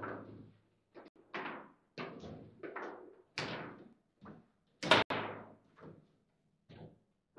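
Table football (foosball) in play: an irregular series of sharp knocks and clacks as the ball is struck by the players' figures and the rods are worked. The loudest crack comes about five seconds in.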